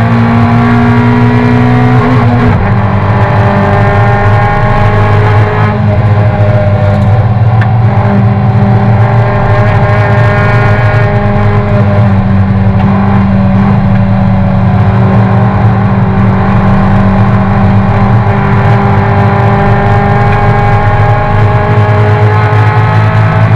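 Racing car engine at full effort under race conditions, heard from inside the cabin. The note climbs and falls, with abrupt pitch changes a few times as gears are changed.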